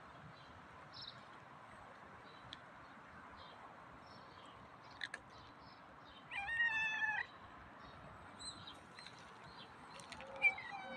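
A cat meowing: one meow of about a second a little past halfway, and another starting near the end.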